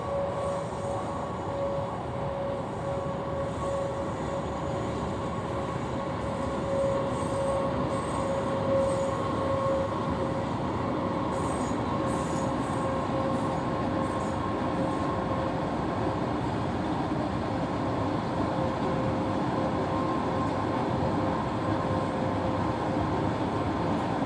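Long WAG9-hauled freight train of BCNA covered wagons rolling steadily by at a distance: a constant rumble of wagons with a steady high whine over it.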